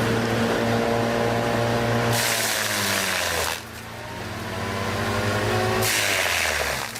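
Engine of a heavy tree-cutting machine running steadily, with two bursts of rushing, hissing noise, about two and six seconds in. During each burst the engine's pitch sags, and the level dips briefly as each burst ends.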